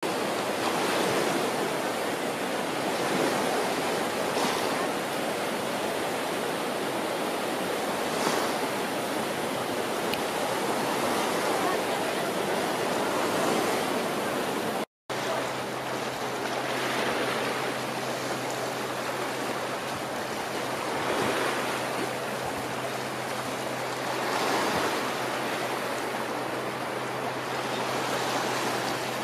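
Small waves on Lake Geneva lapping at the shore, swelling every few seconds. After a brief break halfway, a low steady hum runs underneath.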